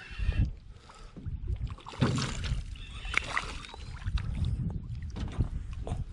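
Scattered knocks and rustling from handling inside an aluminium solo canoe, with a few sharper clunks against the hull.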